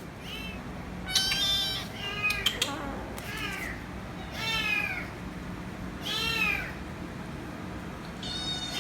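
A kitten meowing loudly and insistently, about six or seven high, downward-bending meows in a row with short gaps between them, demanding attention. A few brief sharp clicks come about two and a half seconds in.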